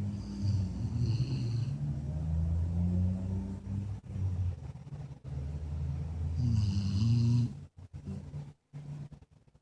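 A Jack Russell terrier mix dog snoring in deep sleep with long, low, rattling snores, a high whistle riding on two of the breaths. The snoring breaks off near the end.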